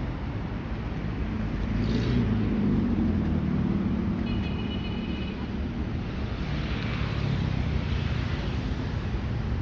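Street traffic on a city avenue: a steady low rumble of car engines and tyres, with a vehicle passing more loudly about two seconds in. A brief high-pitched tone sounds for about a second around four seconds in.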